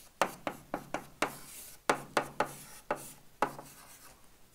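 Chalk writing on a blackboard: about a dozen short, sharp taps and scratches as a formula is chalked up.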